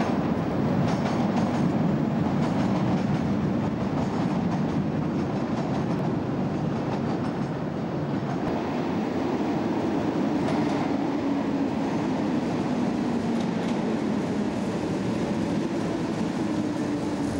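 DART electric commuter train (8100-class electric multiple unit) running on the rails: a steady rumble, with clicks of wheels over rail joints in the first couple of seconds and a faint falling whine around the middle.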